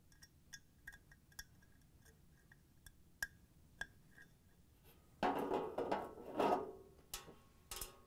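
Small clicks of an igniter wire's terminal being pushed onto a gas range burner head, then a louder scraping rattle, about two seconds long, as the burner head is set down into its opening in the range top, and a shorter one near the end.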